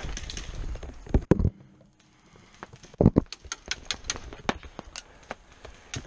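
Airsoft fire: a string of sharp, irregular clicks and taps from gas or electric airsoft guns shooting and BBs striking the wooden slat walls. Two heavy dull thumps come about one second and three seconds in.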